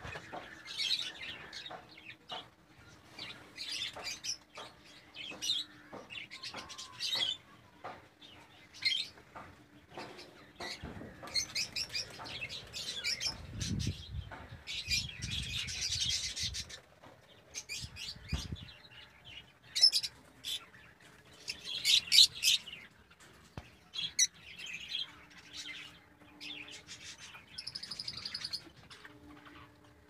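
A flock of budgerigars chirping and chattering: many short, high chirps overlapping, with the loudest calls about two-thirds of the way through. A brief low rumble comes near the middle.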